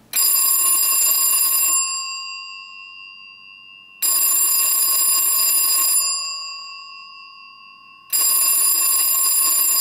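Western Electric 592A external telephone ringer, a very loud double-gong bell, ringing in three bursts of about two seconds each, one every four seconds, the gongs humming on and fading between bursts.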